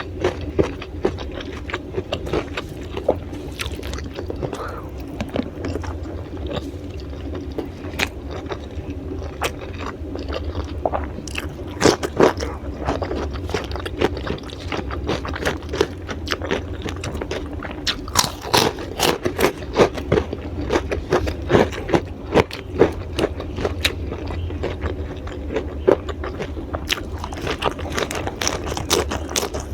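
Raw vegetables (lalapan) being bitten and chewed, with many quick crisp crunches coming in clusters, over a steady low hum.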